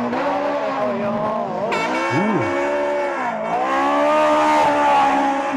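Rally car engine revving hard at full throttle, its pitch climbing and then dropping sharply several times as the driver shifts and lifts.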